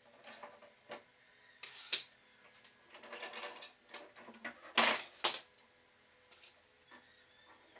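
Irregular clinks, knocks and short scrapes of small hard objects being handled, loudest as a sharp double knock a little under five seconds in.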